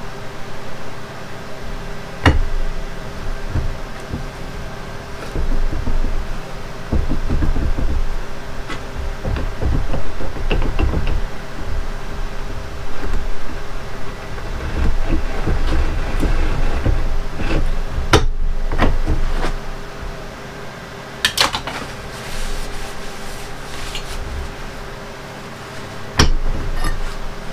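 Irregular clunks, knocks and scrapes of steel parts being handled: a Hobart mixer beater being worked and turned against its broken shaft held in a bench vise.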